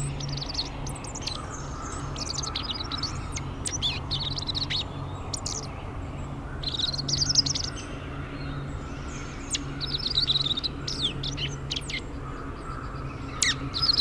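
Slate-colored dark-eyed juncos giving their high-pitched call notes: sharp, smacking chips and quick runs of notes in clusters every second or two, over a steady low background hum.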